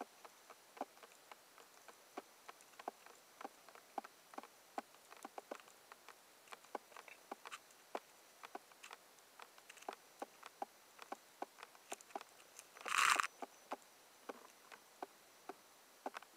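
Underwater reef crackle heard through a waterproof camera housing: irregular sharp clicks, several a second, over a faint hiss. About thirteen seconds in there is one short, louder rush of noise.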